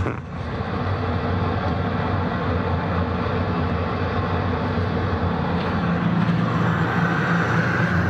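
Steam boiler running: a steady low mechanical hum from the firing burner and its fan. A faint higher tone joins near the end.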